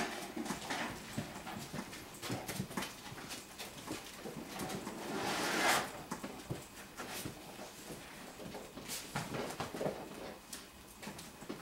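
Five-week-old golden retriever puppies playing among plastic toys: scattered light knocks, taps and scrabbling from paws and toys, with one louder rustling scrape about halfway through.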